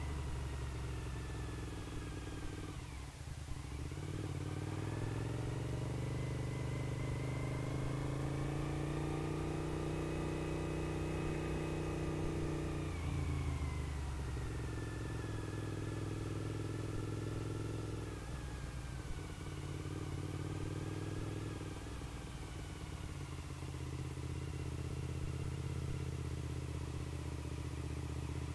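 Suzuki SV1000S 996 cc V-twin engine heard from the rider's seat at road speed. Its note rises and falls several times as the throttle is rolled on and off, with brief dips at the gear changes.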